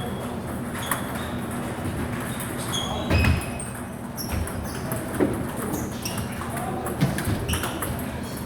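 Table tennis ball clicking off paddles and the table in irregular hits, several with a short high ring, with one low thump about three seconds in.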